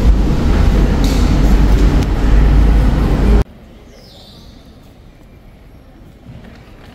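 A loud, low rumbling noise that cuts off suddenly about three and a half seconds in, leaving faint background ambience of a large terminal hall.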